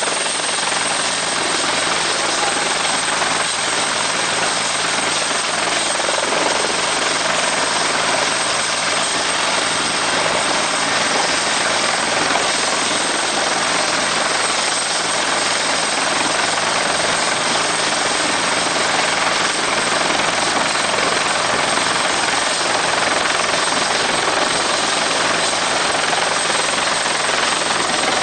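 Helicopter turbine engine and rotor running steadily, a loud continuous rush with a thin high-pitched whine held throughout.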